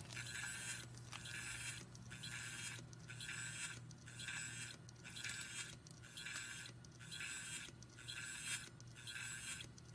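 Faulty Hitachi Ultrastar 500 GB hard drive spinning with a rhythmic scraping stroke about once a second, like a knife being sharpened, over a steady low motor hum. It is the sign of a tilted, wobbling platter rubbing against the heads, grinding to the metal.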